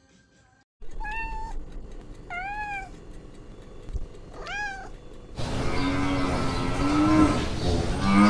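Domestic cat meowing: three short, high, arching meows. About five seconds in there is a louder, lower, drawn-out cat yowl.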